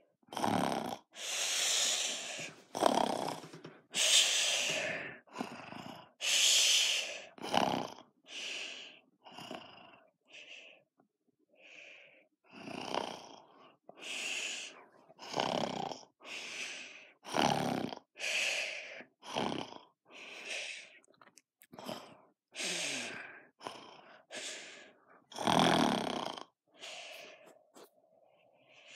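A person snoring: a long run of breathy snores and breaths, about one a second, in an uneven rhythm with short gaps.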